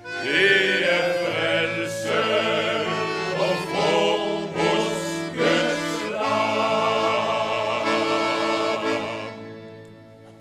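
Male vocal group singing a gospel song in harmony with accordion accompaniment, moving through the closing phrase and then holding a final chord that fades away near the end.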